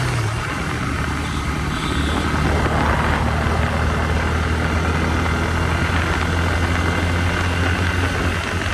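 Bajaj Pulsar N160 motorcycle's single-cylinder engine running steadily, with a constant hiss over it.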